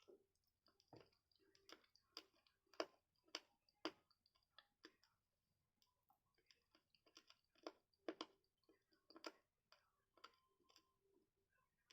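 Close-up chewing of crisp guava fruit: a string of sharp, irregular crunches and wet mouth clicks, in two runs with a short pause about halfway through.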